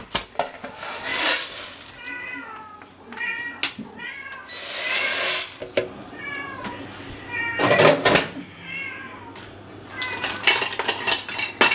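A cat meowing over and over in short, high calls. Between them come a few short bursts of hiss and rattle from dry rice being poured into a frying pan, and a clatter about eight seconds in.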